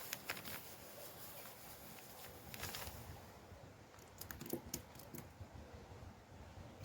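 Scattered light clicks, taps and short rustles from small objects being handled, in clusters at the start, a little before the middle and again past the middle.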